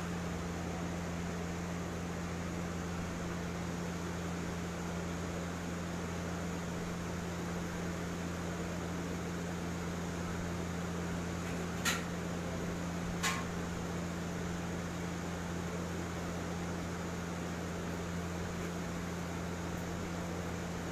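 Steady mechanical hum and hiss, like an electric fan running. Two sharp clicks about a second and a half apart near the middle stand out above it.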